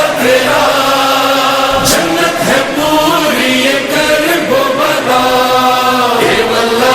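Islamic devotional song about Karbala, chanted by layered voices in long, held, wavering notes.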